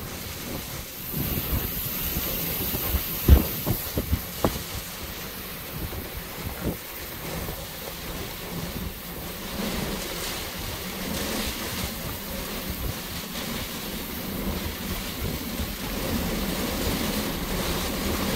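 Heavy rain pouring down with gusty wind buffeting the microphone, and a few sharp low thumps about three to four seconds in. The roar of the wind and rain grows louder in the second half.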